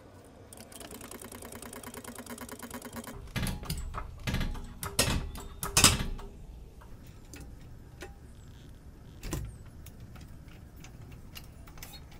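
A MyLift wheel-lift stand being jacked higher under a car. About three seconds of rapid, even mechanical clicking is followed by four heavy metal clunks, then one more clunk a few seconds later.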